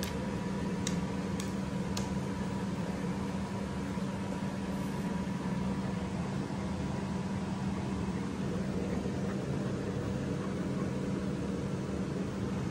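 A steady, even machine hum with hiss, with a few light clicks between one and two seconds in.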